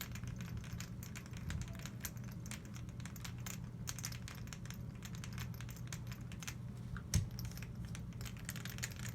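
Small metal parts of a GSG AK-47 .22 rifle being handled during disassembly: many light clicks and taps, with one louder knock about seven seconds in, over a steady low hum.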